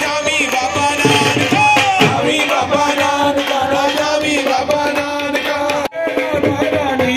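Music: a singer's voice over steady percussion, with a brief dip about six seconds in.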